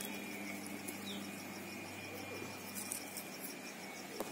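Quiet outdoor background with a steady low hum and faint hiss; no distinct event stands out.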